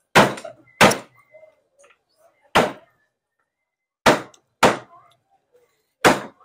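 Six loud, sharp thuds at uneven intervals, some coming in quick pairs, like heavy blows on a wooden surface.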